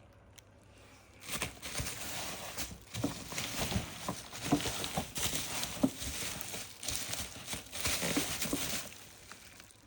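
Parcel packaging being unwrapped by hand: plastic and cardboard crinkling and rustling, with scattered knocks and clicks. It starts about a second in and stops near the end.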